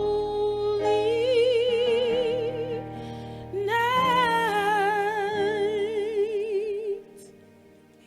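A woman singing long held notes with wide vibrato over steady held accompaniment chords, in a slow Christmas song that comes to its final note and stops about seven seconds in.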